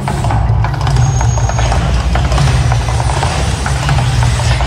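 Mirage volcano show erupting: a loud, steady low rumble with dense crackling as gas fireballs and flame jets burst.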